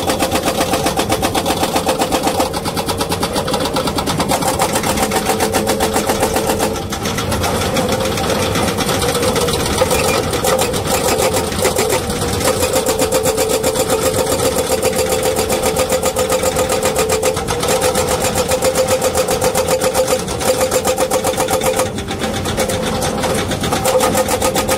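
Excavator-mounted hydraulic rock breaker hammering rapidly over the steady running of the excavator's engine, with short breaks about every five seconds.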